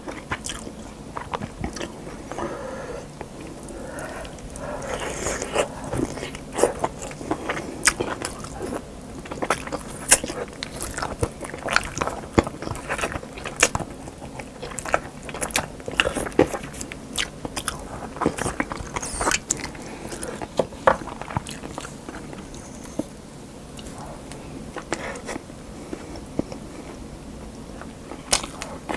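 Close-miked eating sounds of spicy stew with meaty bones and rice: wet chewing and biting meat off the bone, with many sharp smacking clicks throughout.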